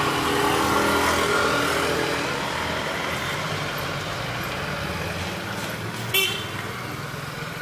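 Steady road traffic noise with a low engine hum, and one short, high vehicle-horn toot about six seconds in.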